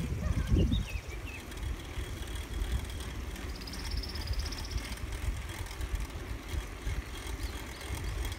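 Wind buffeting a phone microphone while riding a bicycle, a steady uneven low rumble. A faint rapid ticking comes in for a second or two midway.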